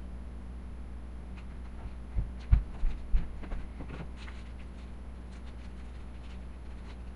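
Steady low hum, with a brief cluster of four or five low thumps a little over two seconds in and scattered faint clicks through the middle.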